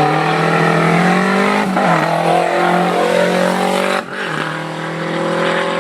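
Historic rally car's engine driven hard at high revs, its note held nearly steady. It breaks briefly about two seconds in, then drops suddenly about four seconds in and carries on a little quieter.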